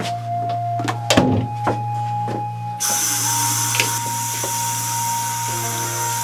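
Sink tap turned on about three seconds in, water running steadily into the basin, after a couple of sharp knocks about a second in. A steady low droning tone with long held notes sounds underneath.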